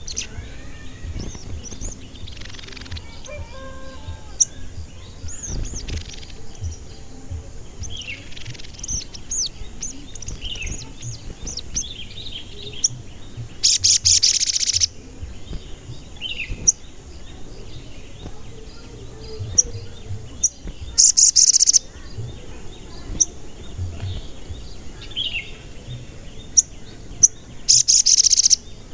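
Sogon bird calling with short, high "cuit cuit" chirps throughout, and three loud bursts of rapid high chirping about halfway, two-thirds of the way and near the end.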